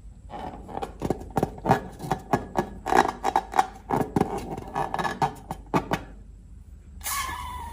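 Slime being squeezed and poked by hand, giving a quick, irregular string of wet clicks and pops that stops about six seconds in. A different, steadier hissing sound starts near the end.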